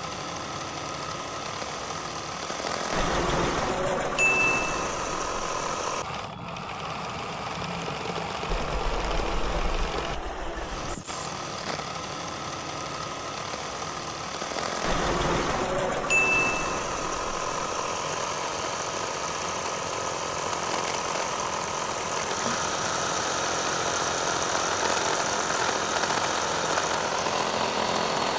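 Small electric motor of a homemade miniature flour mill running steadily, with grain rustling as it is scooped.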